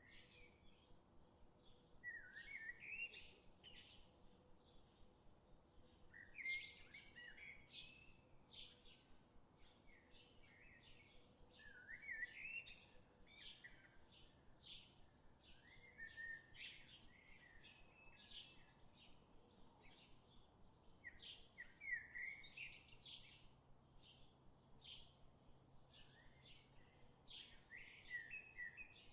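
Faint birdsong from a laid-in nature recording: short chirps repeated about twice a second, with a louder warbled phrase every five seconds or so.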